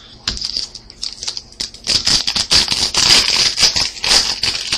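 Wrapper of a trading-card pack crinkling and tearing as it is opened by hand: a dense run of crackles that starts about a quarter second in and grows louder from about two seconds in.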